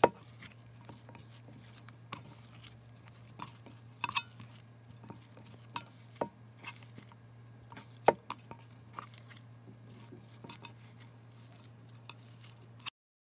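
Hands kneading glutinous rice flour dough in a metal mixing bowl: soft squishing with irregular sharp clicks and knocks against the bowl, over a steady low hum. It all cuts off suddenly near the end.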